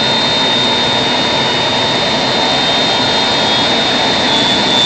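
Boeing 767-200's twin jet engines idling after start: a steady, loud rush with a constant high whine.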